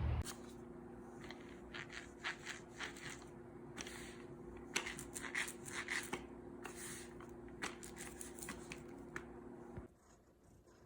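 Irregular rustling and scraping handling sounds over a steady low hum. Both stop abruptly near the end.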